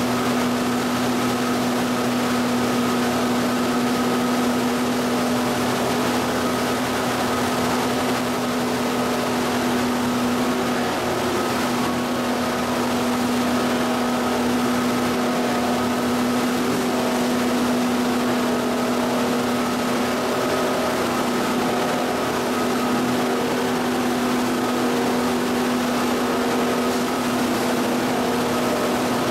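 LDPE film washing line running: a steady machine hum from its motors and paddle shafts, with an even hiss of churning, splashing water.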